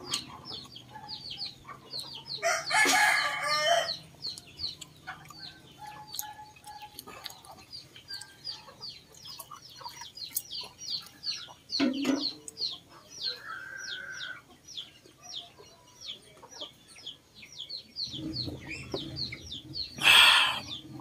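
A rooster crows about three seconds in, with another loud high call near the end, over a fast, steady high chirping of about four chirps a second.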